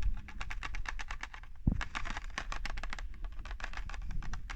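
Keys being typed: rapid, irregular clicking, several clicks a second, with one low thump about one and a half seconds in.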